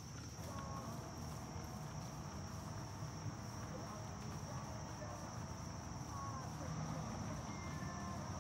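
Steady high-pitched chorus of late-summer insects, with a dense low rumble underneath.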